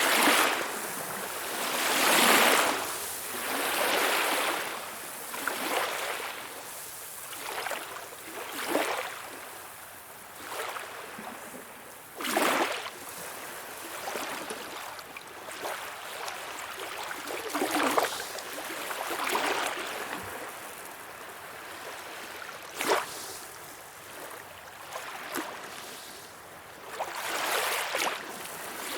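Small waves splashing and lapping in uneven surges, with a few sharper, short splashes standing out now and then.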